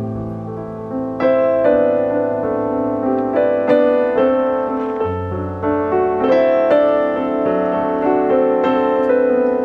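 Background piano music: notes struck at a steady, unhurried pace over held low notes.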